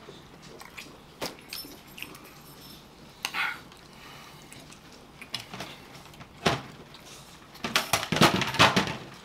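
Scattered clicks and soft handling noise as rotisserie chicken is pulled apart and eaten by hand, then a short, loud run of crackling plastic clatter near the end as a clear plastic rotisserie-chicken clamshell container is handled.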